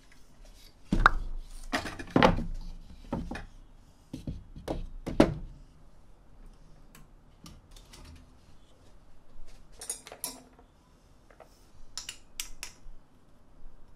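Small hard household objects being handled and set down: a run of sharp clicks and knocks in the first five seconds, then lighter taps, a brief rustle about ten seconds in and a few crisp clicks near the end.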